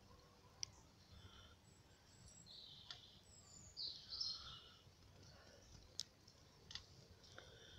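Faint outdoor ambience with small birds chirping and warbling on and off, and a few sharp clicks, the loudest about six seconds in.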